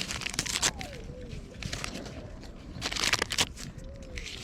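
Wood fire crackling and snapping in irregular sharp pops, with a thicker burst of snaps about three seconds in.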